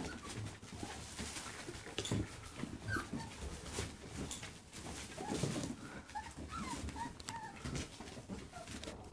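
Young puppies whimpering and squeaking in many short, high, wavering calls while they play, with scattered clicks and knocks throughout.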